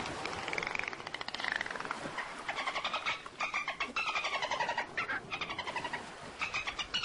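Dolphins calling: fast trains of clicks mixed with whistles that slide up and down in pitch, in several runs with short breaks.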